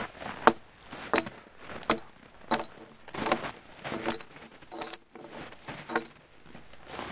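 Axe limbing a felled spruce pole, chopping off its branches: a steady run of about eight sharp strikes, roughly three every two seconds, the loudest about half a second in.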